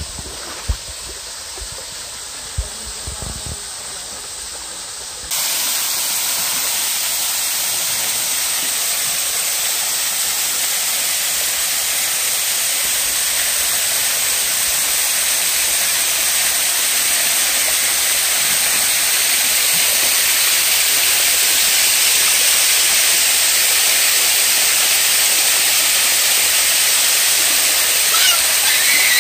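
Small waterfall spilling off a rock ledge into a shallow pool: a loud, steady rush of falling water that cuts in suddenly about five seconds in and slowly grows louder. Before it, a shallow creek flows more quietly, with a few splashes and knocks.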